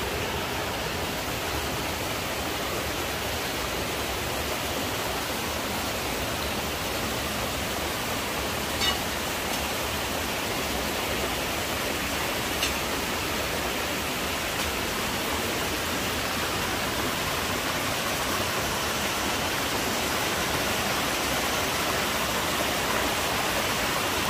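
Rocky mountain stream rushing over boulders, a steady even rush that grows slightly louder, with two brief knocks a few seconds apart in the middle.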